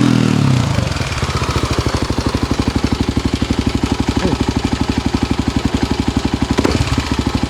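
1998 Kawasaki KLX250's single-cylinder four-stroke engine through an FMF aftermarket exhaust. It drops back from a rev in the first second, then idles with an even, rapid thumping of about ten pulses a second.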